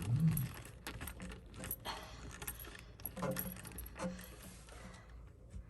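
Small metal clicks and rattles of screws and a screwdriver being handled while a circuit board is screwed into place, after a brief low hum at the start.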